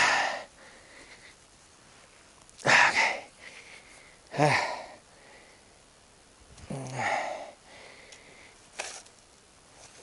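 Digging: a tool cutting and scraping into soil and rubble in short crunching strokes, about one every two seconds, with a single sharper click near the end.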